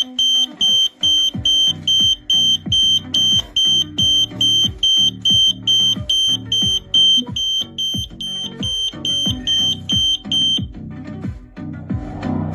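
Smoke alarm sounding: a high, piercing beep repeated evenly at about two beeps a second, stopping about ten and a half seconds in. Background music with a steady beat plays underneath.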